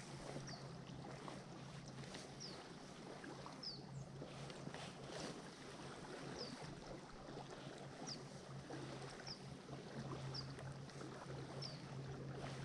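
Faint open-water ambience from a kayak: a steady low hum, light water noise, and a short high chirp repeating about once every second and a bit.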